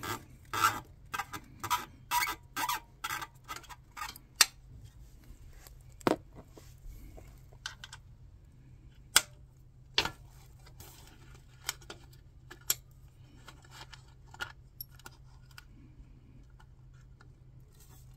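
Small metallic clicks and taps of an L-shaped Allen key working loose the bolts on a motorcycle exhaust cover: a quick run of clicks in the first few seconds, then single clicks every second or two.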